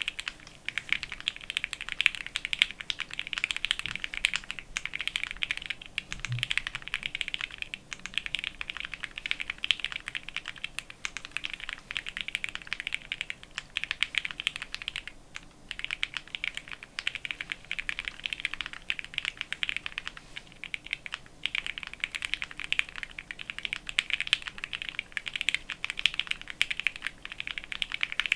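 Fast continuous typing on a Ginkgo65 mechanical keyboard with Gateron Pro Yellow linear switches, a polycarbonate plate and PBT keycaps: a dense stream of keystroke clicks, broken by a few brief pauses.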